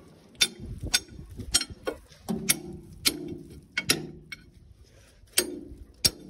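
About ten sharp metallic clicks and clanks at irregular intervals, several with a short low ring after them: hard metal objects being knocked against each other and handled.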